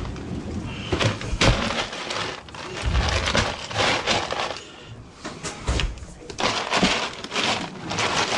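Ice cubes crunching and rattling in a plastic tub as whole fish are pressed and packed down into the ice, in irregular bursts.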